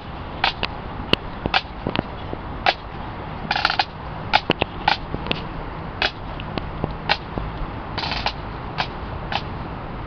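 Pipe band snare drums tapping out a marching beat: single sharp strokes about twice a second, with a short roll every few seconds.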